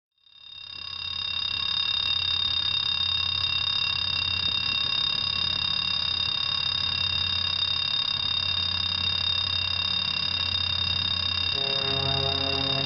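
Level crossing warning signal sounding a steady high-pitched alarm tone as a diesel locomotive hauling a freight train approaches, its engine a low steady rumble underneath. Near the end a lower, pitched engine note grows stronger as the locomotive comes closer.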